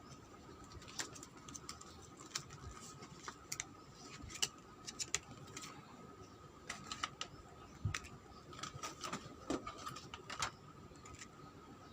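Irregular light clicks and taps of hands and a tool working on a laptop's plastic case, with a faint steady tone underneath.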